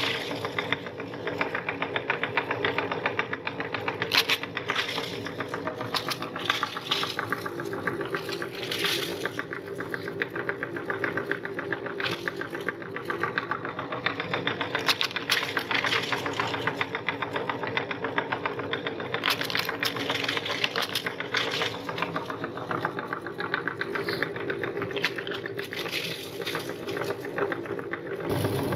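Meat grinder's motor running steadily, with dense crackling and crunching as items are forced through the auger and cutting plate, and louder sharp cracks every few seconds.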